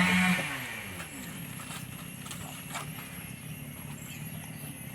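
An engine drops from high revs, its pitch falling away in the first second, then runs steadily at low idle. There are a couple of faint clicks in the middle.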